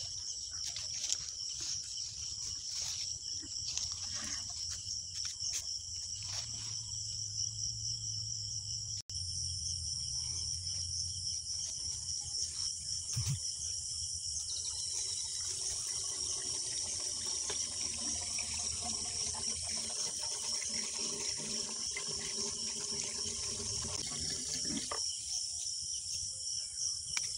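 Steady high-pitched chirring of insects in the grass. From about halfway through, water is poured from a jug into a diesel pump set, gurgling as the pump is primed before starting.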